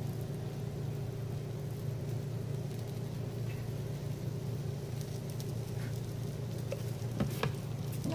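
Steady low mechanical hum, with a few faint ticks and two sharp clicks a little after seven seconds in.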